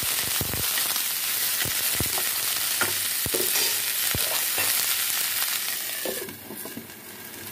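Chopped bottle gourd, onion and tomato sizzling in hot oil in a kadai, stirred with a spatula that scrapes and knocks against the pan several times. About six seconds in the sizzle drops sharply and turns muffled as a glass lid goes on to let the vegetables cook.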